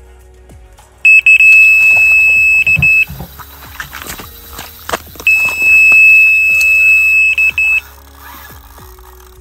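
Electronic carp bite alarm sounding a run: a loud, steady high tone sounds twice, a couple of seconds each time, breaking into rapid beeps as it starts and stops, as a fish takes line. Clicking and rattling come in between as the rod is handled.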